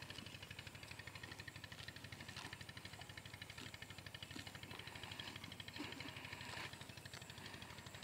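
An engine running steadily with a rapid, even pulse, faint, with a few short clicks and a brief louder rustle about six seconds in.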